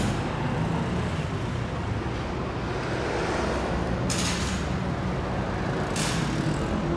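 Steady low rumble of road traffic, with two short hisses about four and six seconds in.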